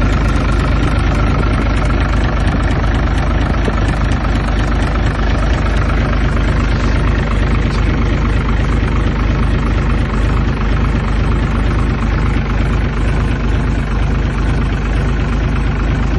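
Isuzu 6HE1 six-cylinder diesel engine running steadily at idle, with no revving.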